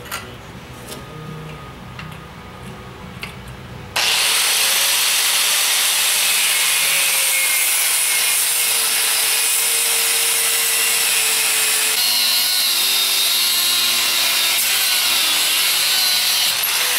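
Corded cutoff tool's abrasive wheel cutting through a hardened-steel socket clamped in a vise: a loud, steady hissing grind that starts suddenly about four seconds in, the motor's whine shifting in pitch as the wheel bites, and stops abruptly near the end. Before it, only a few faint clicks.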